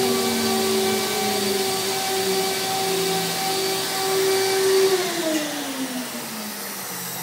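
CNC router spindle running with a steady whine over a rushing air hiss. About five seconds in, its pitch glides down and the sound drops as the spindle winds down at the end of the cut, while the hiss carries on.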